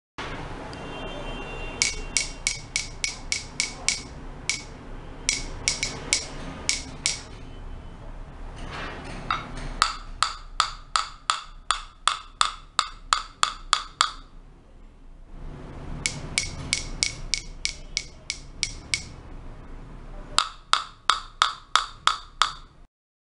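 A pen tip tapping on glazed ceramic wall tiles in five runs of sharp taps, about three to four a second. The taps ring hollow at the marked tiles, the sign of an air void behind them where the adhesive or mortar does not fully cover the tile's back, or where the tile is bowed.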